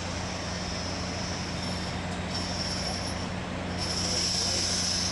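Freight train rolling past with a steady rumble, its wheels squealing on the rails in high-pitched spells that are loudest near the end.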